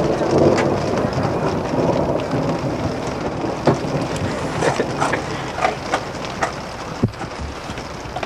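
Heavy rain drumming on the roof of an RV, heard from inside, with a steady rumbling wash and scattered sharper drop taps.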